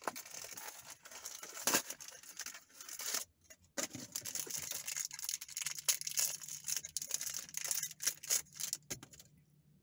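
A minifigure blind pack being torn open by hand: crinkling and tearing of the wrapper with many small rustles and clicks, stopping about nine seconds in.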